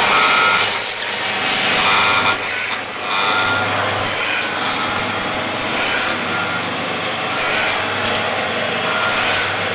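Hualian DXDF-20AX automatic powder sachet filling and packing machine running: a steady motor hum with a repeating machine cycle about every 1.7 seconds, one cycle per filled and sealed bag.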